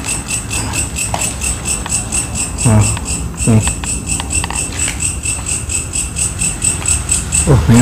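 Crickets chirping in a steady pulsing rhythm, about five pulses a second. Short low voice sounds come in a few times, around three seconds in and near the end.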